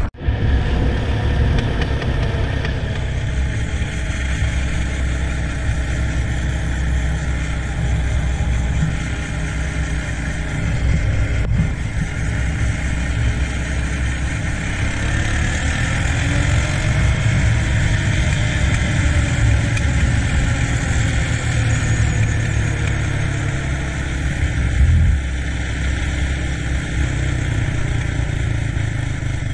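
Three-wheeled ATC engine running steadily while riding, with heavy low rumble throughout. Its note rises and then eases off once about halfway through.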